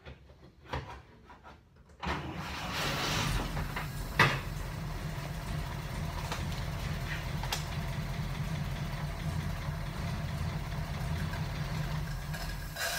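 A machine starts suddenly about two seconds in and runs with a steady low hum, with one sharp click a couple of seconds later, then stops near the end.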